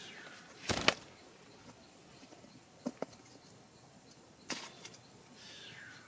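A parrot's wings flapping in short flurries, about a second in and again past four seconds, with two sharp clicks around three seconds and a falling call near the end.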